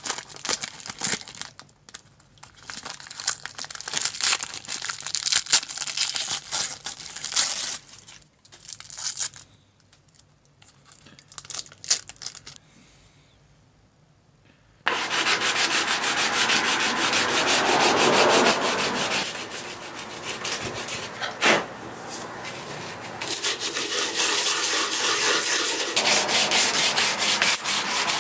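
Thin plastic bag crinkling as a knife is unwrapped and handled, falling nearly quiet for a few seconds. About halfway through, steady rasping starts suddenly: a strip of abrasive cloth pulled back and forth over a wooden knife handle, hand-sanding it.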